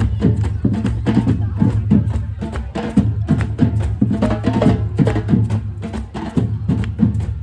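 Street band drums and percussion playing a fast, steady beat, about four strokes a second.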